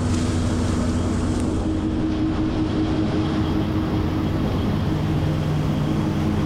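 Combine harvester running steadily: a continuous low drone with a few held humming tones that change pitch partway through.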